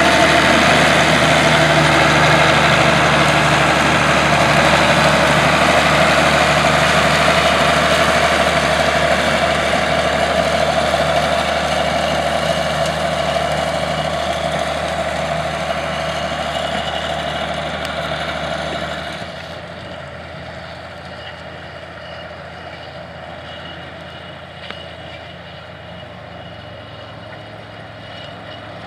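Allis-Chalmers 200's turbocharged six-cylinder diesel running steadily while pulling a tandem disk. It fades slowly as the tractor draws away, then drops sharply about two-thirds of the way in to a quieter, more distant engine sound.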